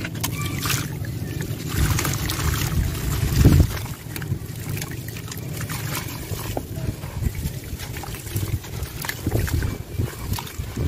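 Wet sand-and-cement chunks being squeezed and crumbled by hand in a tub of water: sloshing, dribbling grit and scattered splashes over a steady low rumble, with the biggest splash about three and a half seconds in.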